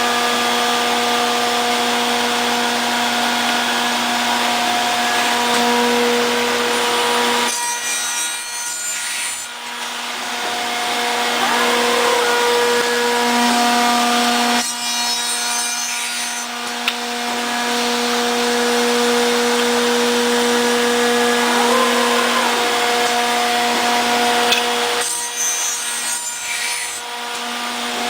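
CNC round end tenoner running, its cutter spindles giving a steady whine while cutting tenons in wood. The hum drops out briefly three times.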